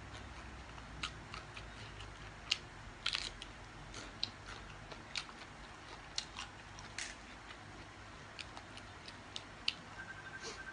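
Eating sounds: soft irregular crunches and clicks of someone chewing a noodle salad with fresh raw vegetables, with small taps of a fork against a plastic bowl.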